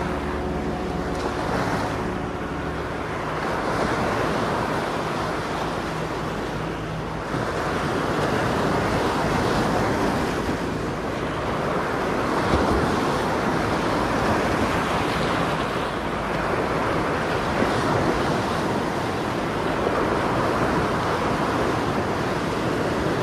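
Sea surf breaking and washing over rocks close by, the rushing noise swelling and falling back every few seconds.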